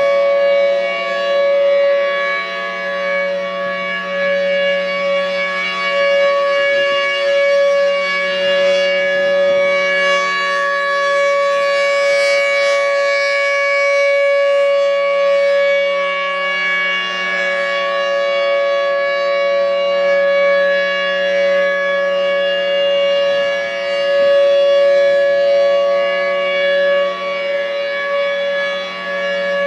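Federal Signal Thunderbolt 1003 outdoor warning siren sounding its steady Alert signal during a test. It holds several tones at once at a fixed pitch, loud and unbroken, with no rise or fall.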